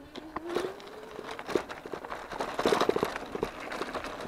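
E-bike motor whine rising in pitch over the first two seconds as the bike picks up speed, with knocks and rattles from the bike riding over rough sandy trail.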